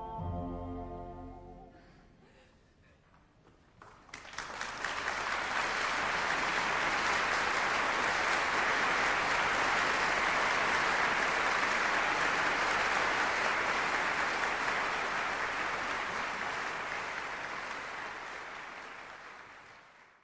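The orchestra's last notes fade out in the first couple of seconds; after a short hush an audience starts applauding about four seconds in, steady applause that fades away near the end.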